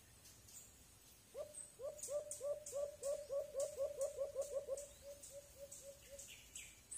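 White-eared brown dove calling: a run of about twenty short hooting notes, each with a quick upward flick, starting about a second in, speeding up, then slowing and fading away. A faint high ticking runs alongside, and a sharp click comes at the very end.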